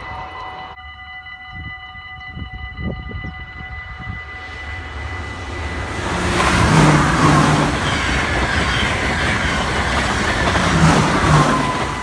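An NS ICMm (Koplopper) electric intercity train approaches and passes close by at speed. Its rush and wheel rumble build from about halfway and are loudest near the end. Under it, a level-crossing warning rings steadily.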